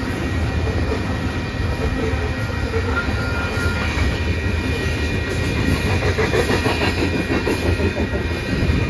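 Freight train of coal gondola cars rolling past at close range: a steady rumble of steel wheels on rail, with a clicking of wheels over rail joints that grows plainer in the second half.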